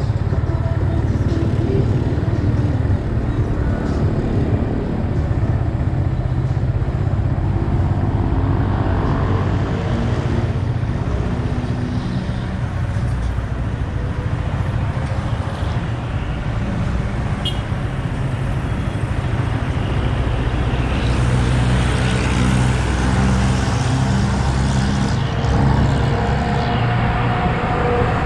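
Yamaha XSR 155's single-cylinder engine running under way, its pitch shifting up and down with the throttle, over wind rush and road traffic. A stretch of louder hiss comes about two-thirds of the way through.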